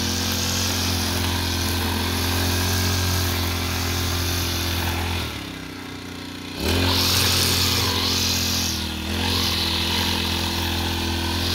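Backpack petrol brush cutter with a nylon string head running steadily at cutting speed. About halfway through the throttle is let off and it drops to a low idle for about a second, then revs back up. There is a shorter easing of the throttle a couple of seconds later.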